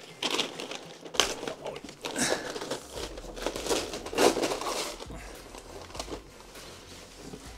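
Brown paper crumpling and rustling in irregular bursts while a large 3D printed plastic splitter is handled on top of it.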